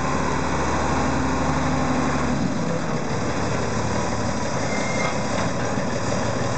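Mercedes-Benz Unimog U417's six-cylinder diesel engine running as the vehicle drives slowly up; about two and a half seconds in the steady engine note drops back as it slows toward idle.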